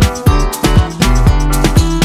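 Upbeat background music with a steady drum beat and bass line.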